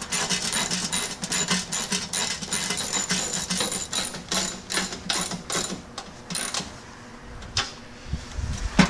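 Socket ratchet clicking in quick runs as nuts are run down onto the bolts holding a snowblower's bottom cover. The clicking thins out and stops about six and a half seconds in.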